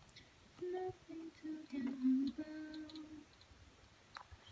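A girl humming a short tune to herself, about half a dozen held notes over two or three seconds, with a few light ticks.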